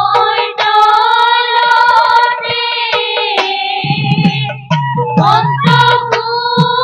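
A woman singing an Assamese dihanam devotional song through a microphone. A low percussion beat comes in a little past halfway.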